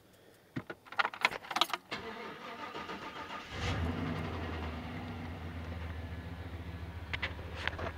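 Car keys jangle and click at the ignition, the starter cranks briefly, and the truck's engine catches about three and a half seconds in and settles into a steady idle.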